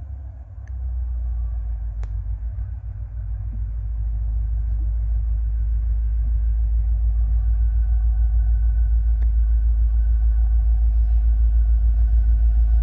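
Approaching VIA Rail passenger train led by F40PH diesel locomotives: a deep rumble growing steadily louder, with a faint higher engine hum joining about halfway.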